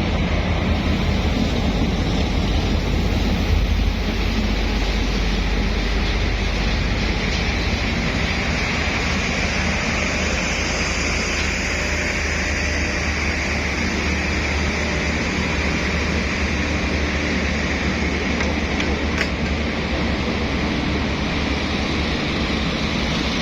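Diesel shunting locomotive hauling a passenger train past at low speed: a steady low engine rumble under a continuous hiss and rumble of wheels on the rails.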